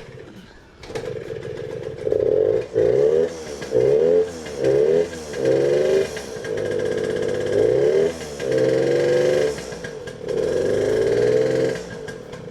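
Honda JR50's 49cc two-stroke single-cylinder engine catches about a second in and is revved up and down in repeated blips, its revs sagging between them. It doesn't want to idle; the idle screw may need turning up.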